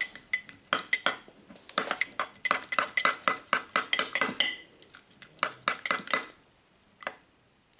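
Quick, irregular clinks and taps of stirring in a bowl as blue paint is mixed into slime; the stirring stops about six seconds in, with one last tap near the end.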